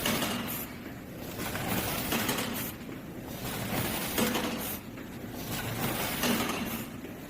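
Automatic rotary pouch packaging machine running through its cycle, with clattering, clinking mechanical noise that swells about once every two seconds.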